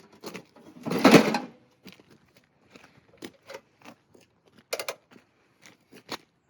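Snowblower being handled to start it: one loud scraping rush about a second in, then scattered clicks and knocks from its controls and parts. The engine does not run.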